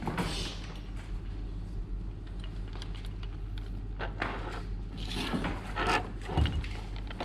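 Handling noise: scattered light clicks, knocks and rustling as small objects and tools are picked up and moved, busier about four to six seconds in, over a steady low hum.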